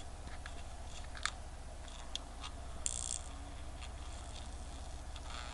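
Scattered light clicks and taps of small tools handling a quartz watch movement, with a brief scratchy rustle about three seconds in, over a steady low hum.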